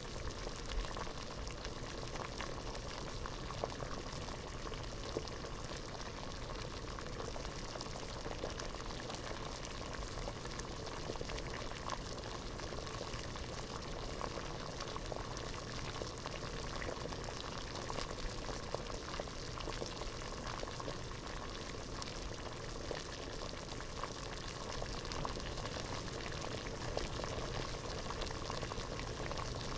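Water boiling hard in a pot, a steady dense bubbling with many small pops and splashes.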